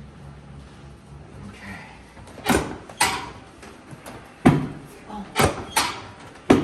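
Drop sections of a chiropractic adjusting table falling under the chiropractor's thrusts during drop-technique adjustments: six sharp clunks, irregularly spaced, starting about two and a half seconds in.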